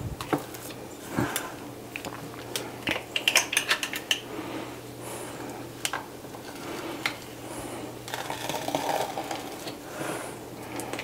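Metal ice cream scoop scraping and clicking against the inside of a plastic Ninja Creami pint as it digs out firm, freshly spun ice cream, with scoops dropped into a ceramic bowl. A steady low hum runs underneath.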